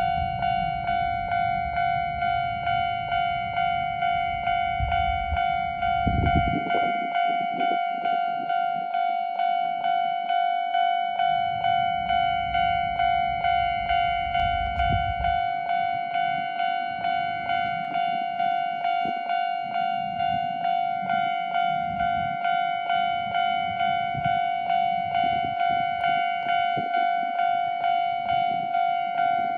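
Japanese level-crossing warning alarm ringing, an electronic bell tone repeating in steady, even strokes. A low rumble runs beneath it for the first half and dies away about halfway through.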